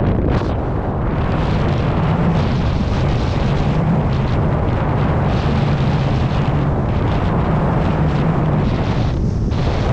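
Heavy wind noise buffeting a camera microphone on a windfoil rig under way, with water rushing past and a low steady hum through the middle that drops away near the end.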